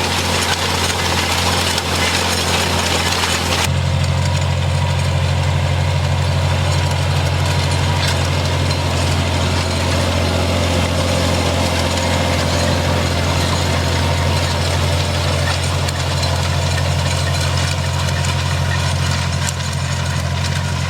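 Farmall 460 tractor engine running steadily at a constant speed, with a deep even hum. About four seconds in the sound changes: the hiss falls away and the low hum gets stronger.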